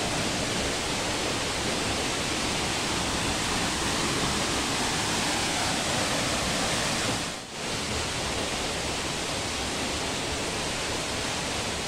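Steady rushing of a waterfall and river water, an even noisy hiss that drops out briefly about seven seconds in.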